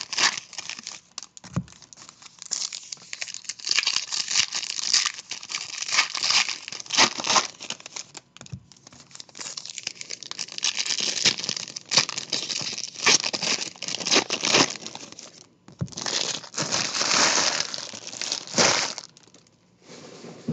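Trading card pack wrappers crinkling and tearing in irregular bursts as 2018 Diamond Kings hobby packs are opened by hand, with a longer, louder stretch of crinkling near the end.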